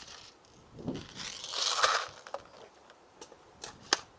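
A rustling, crinkling swell of noise lasting about a second, followed by a few separate sharp clicks, the loudest near the end: handling noise.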